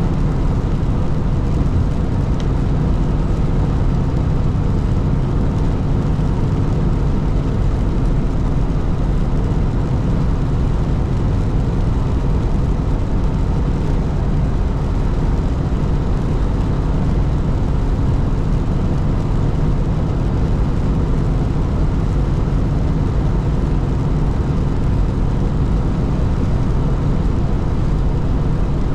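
Steady drone of a truck's engine and tyres at highway speed, heard from inside the cab: a constant low rumble with a faint hum on top and no changes.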